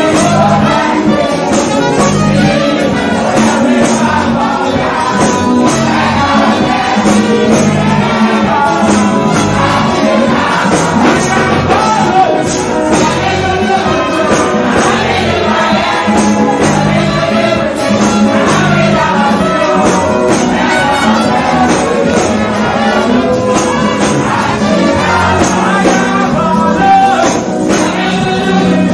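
Live gospel music played loud through a PA: singing over a steady beat and bass line.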